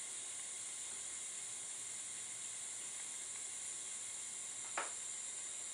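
Steady hiss of a Bernzomatic butane soldering iron running with its tip hot, with a single short crackle about five seconds in.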